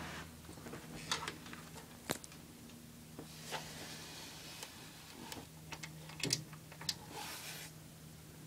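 Scattered clicks, taps and handling knocks of a hand working at the front of a stereo receiver, the loudest a sharp click about six seconds in, over a faint steady low hum.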